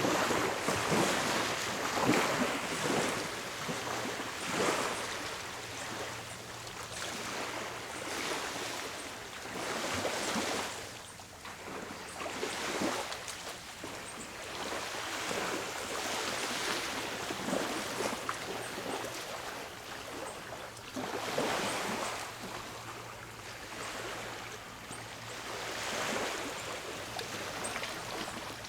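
Small sea waves washing in again and again, each wash swelling and fading a second or two apart.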